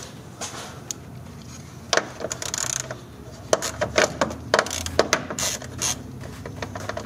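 Hand ratchet clicking in short runs as it loosens a radiator-fan bolt, the clicks coming mostly in the second half.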